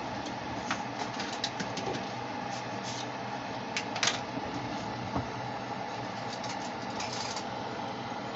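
Light clinks and clatters of kitchen utensils and dishes being picked up and set down, scattered short knocks over a steady background hum.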